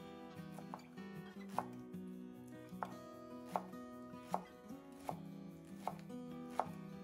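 Sharp, regular knocks about every three quarters of a second over faint music of held, pitched tones that change in steps.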